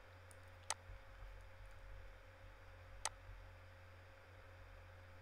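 Two sharp computer mouse clicks, about two and a half seconds apart, over a faint low hum in an otherwise near-silent room.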